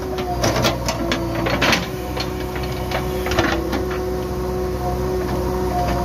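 JCB 3DX backhoe loader's diesel engine running under load, with a steady hydraulic whine that shifts slightly in pitch as the backhoe arm and bucket move through the soil. Scattered knocks and scrapes come from the bucket and linkage, mostly in the first couple of seconds.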